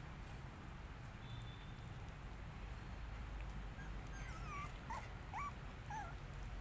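A puppy whimpering, a handful of short high whines in the second half.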